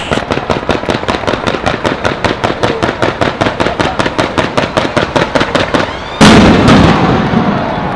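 A bridge-mounted fireworks display firing a fast, continuous stream of sharp reports, several a second. A little after six seconds in comes a single much louder bang that dies away with a rumble.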